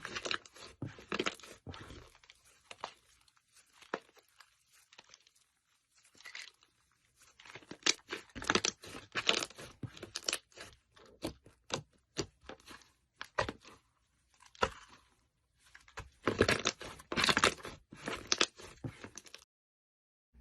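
Slime being squeezed and stretched by hand, crackling and popping in bursts with short pauses between them.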